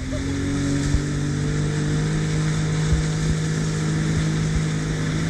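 Jet ski engine running under way, its note coming in at the start and then holding a steady drone, over the rush of water and spray against the hull.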